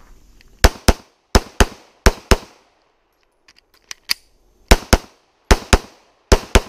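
Semi-automatic pistol fired in three quick pairs of shots, then a pause of about two seconds with faint clicks of a magazine reload, then three more pairs of shots.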